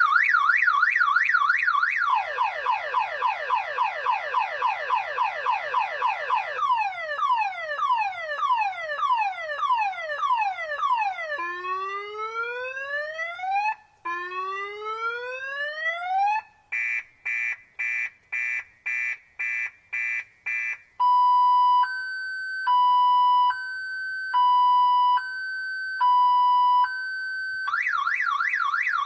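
Electronic car alarm siren cycling through its tone patterns: a fast warble, quick falling chirps that slow into longer falling whoops, two long rising whoops, a string of beeps about two a second, then a slow high-low two-tone. It returns to the fast warble near the end.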